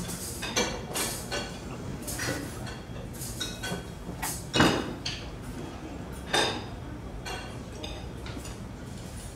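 Irregular clinks, knocks and clatter of dishes and cutlery, with the loudest knocks about four and a half and six and a half seconds in.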